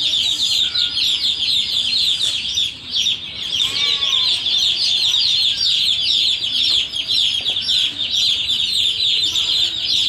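A flock of day-old broiler chicks peeping continuously: a dense, high-pitched chorus of overlapping chirps, with one or two closer calls. This clamour is normal for chicks just placed under the brooder lamps in a new place.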